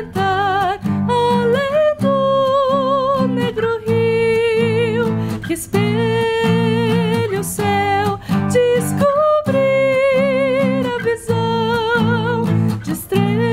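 A woman singing long, wavering notes over a steadily strummed acoustic guitar, performed live as an acoustic song.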